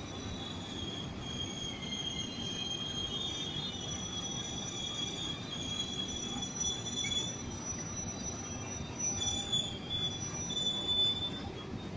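Passenger train coaches rolling along the platform: a steady low rumble with high-pitched wheel squeal, several thin tones that waver and come and go, louder near the end.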